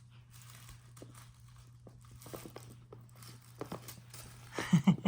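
A kitten playing with her toys: scattered light rustling, crinkling and soft taps, with a louder flurry of quick knocks and rustles near the end.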